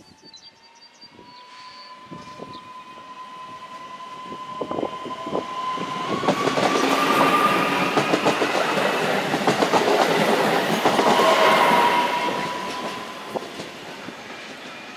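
A Newag Impuls EN63A electric multiple unit approaches and passes close by. A steady electric whine and the rumble of wheels on rail build up, with clicks over the rail joints. The sound is loudest as the cars go past, then fades away.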